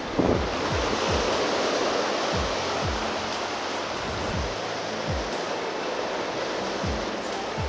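Sea surf rushing and washing over shore rocks, loudest in the first few seconds, then easing, with background music's deep beat thudding underneath.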